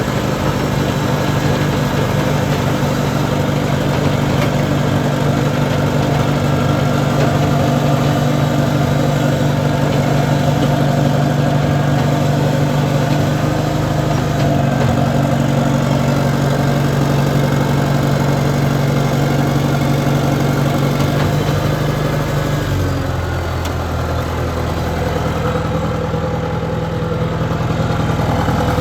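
Track loader's engine running steadily. Its pitch shifts slightly about halfway through and drops lower near the end as the engine speed falls.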